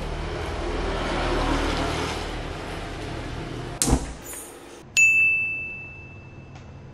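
A steady hiss of background noise, then a sharp click and a short hiss as the gas stove burner is lit. About five seconds in, a bright chime rings out and fades over about two seconds.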